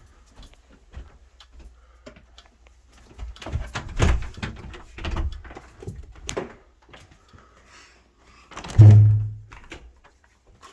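Rustling and clicking handling noises, then a single loud, low thump about nine seconds in.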